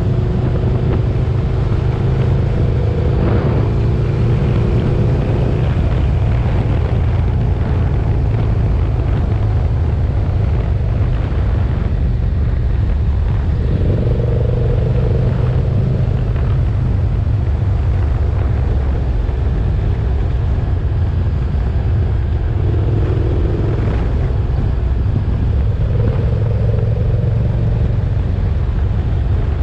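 KTM 1290 Super Duke GT's V-twin engine running on the move, a steady low rumble whose note rises and falls a few times with the throttle.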